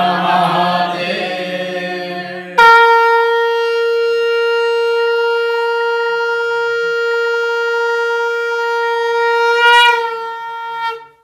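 A group of voices chants together for about the first two and a half seconds. Then a conch shell (shankh) sounds one long steady horn-like note for about eight seconds, starting abruptly and loud, swelling briefly near the end before tailing off.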